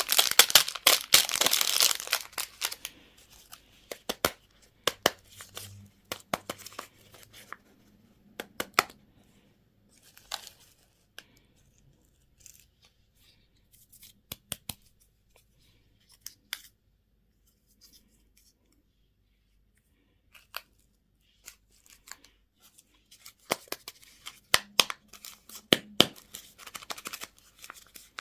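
Candy packaging being torn open and handled: a dense stretch of tearing and crinkling in the first couple of seconds, then scattered clicks and taps with quiet gaps, and more crinkling and clicks near the end.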